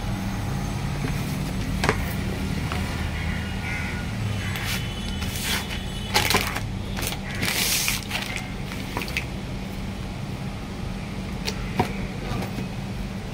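Sheets of paper rustling and crinkling as they are handled, in a few short bursts about halfway through, with a couple of light knocks, over a steady low hum.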